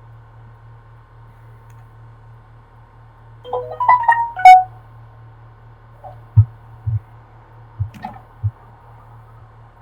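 A short electronic jingle of quick pitched tones, stepping up and down, about three and a half seconds in, followed by four soft low thumps, over a steady low hum.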